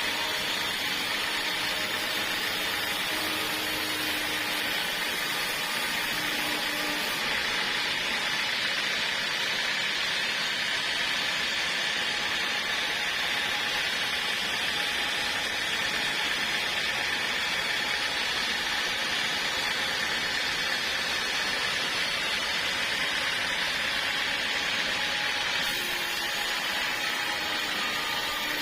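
Portable sawmill running and sawing through a log in one long, steady pass. The sound changes character about seven seconds in and again near the end.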